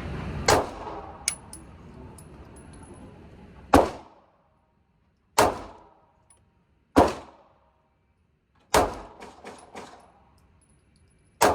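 Six single shots from a Glock 43x 9mm subcompact pistol, fired slowly and unevenly, each a sharp crack with a short echoing tail. Light metallic tinkles follow some shots as spent brass casings land.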